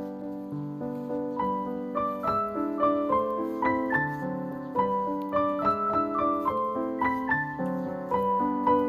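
Background piano music: a gentle melody played over held lower notes, getting busier with more notes from about a second and a half in.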